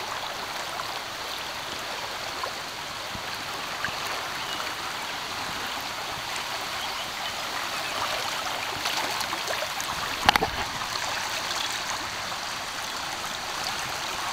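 Shallow river water rushing steadily over rocks, with one brief knock about ten seconds in.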